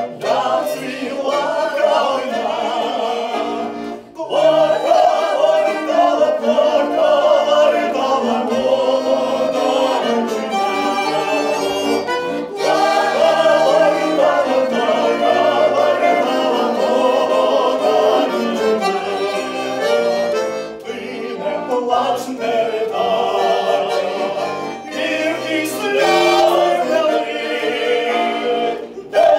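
A man and a woman sing a song to button accordion accompaniment, with trumpet and saxophone playing along. The music breaks off briefly about four seconds in.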